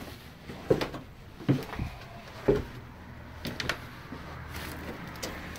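Footsteps on old wooden floorboards: about six dull, uneven thuds roughly a second apart.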